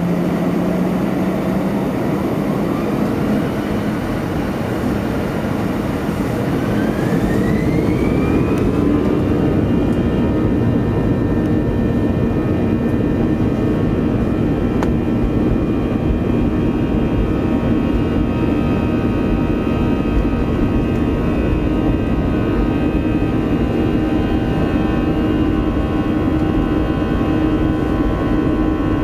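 Airbus A321's CFM56-5B jet engines spooling up to takeoff thrust, heard from inside the cabin: a whine that rises in pitch over the first several seconds, then holds steady over a constant rumble as the aircraft accelerates down the runway on its takeoff roll.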